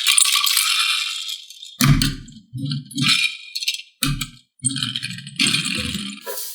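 Toy playset pieces rattling and being handled in a string of short, irregular bursts.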